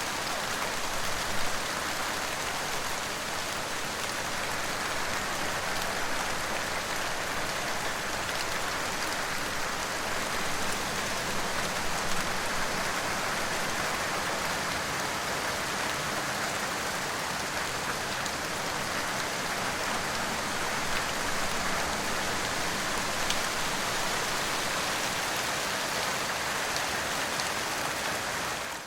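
Steady heavy rain falling, an even dense hiss with faint scattered drop ticks.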